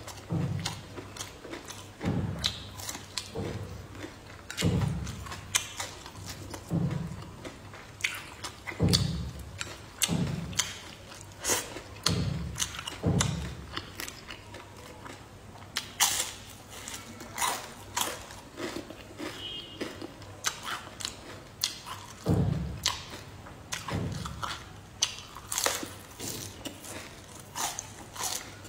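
Close-up eating sounds of a person chewing and biting fried crucian carp: irregular wet chewing with soft low thuds and sharp mouth clicks and smacks, roughly one every second.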